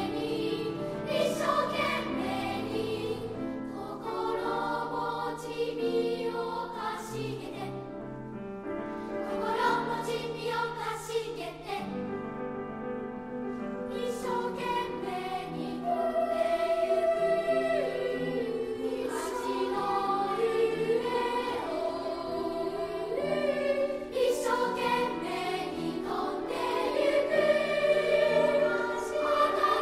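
Elementary-school children's choir singing a Japanese choral song, several voices in harmony, growing louder later on.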